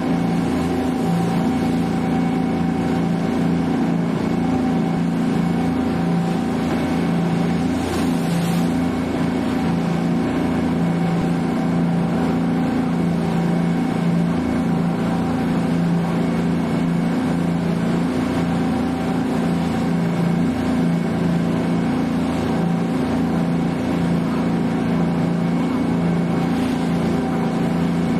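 Tour boat's engine running at steady speed, a constant low drone with a faint steady whine above it, over an even rush of noise.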